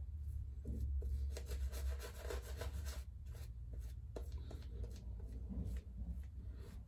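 German straight razor, freshly honed on an Arkansas Dota Creek stone, shaving through lathered stubble: short scratchy scraping strokes, a close run of them in the first few seconds, then fewer, more spaced strokes. A steady low hum sits underneath.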